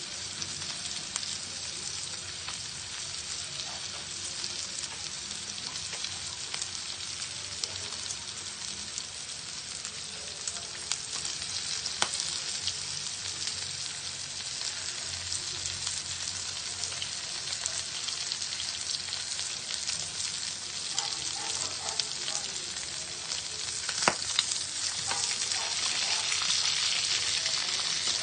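Pork chops sizzling as they grill, a steady hiss that grows a little louder near the end. A couple of sharp clicks stand out, about twelve seconds in and again near the end.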